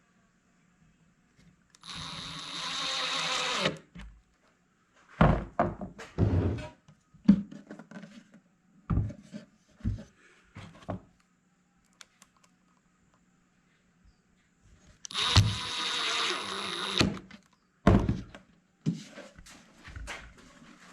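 A drill driver runs twice, for about two seconds each time, driving screws. Sharp knocks and clunks of hardware being handled come in between the two runs.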